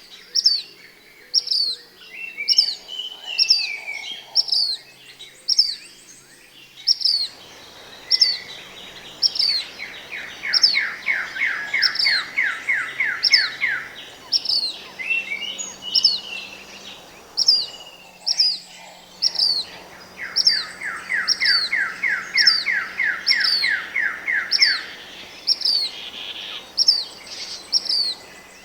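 Songbirds calling: one repeats a short, high, falling chirp about once a second without pause, while another gives a rapid trill of evenly repeated notes twice, each lasting about four seconds.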